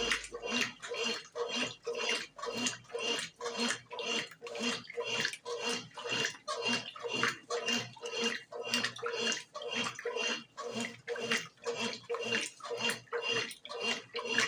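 Brastemp BWG11 11 kg washing machine in its wash cycle, water and laundry sloshing in even pulses about twice a second.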